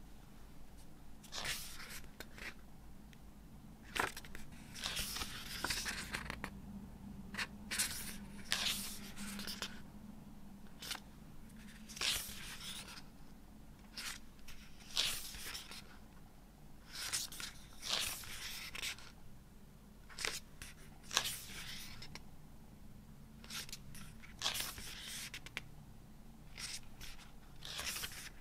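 Paper pages of a small hardcover book being turned by hand: a short rustling swish every second or two.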